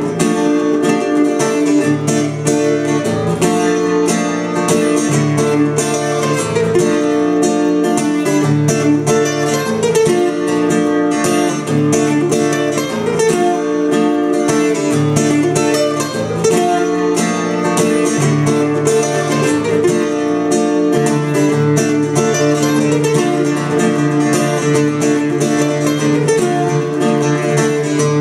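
Solo acoustic guitar playing an instrumental passage. Picked notes ring over a bass line that changes every second or two.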